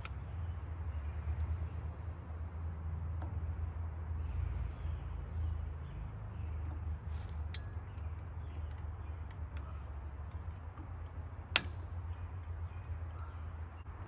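Scattered light metallic clicks and clinks from an aftermarket chainsaw muffler being handled and fitted to the saw, with one sharper click a little before the end, over a steady low rumble.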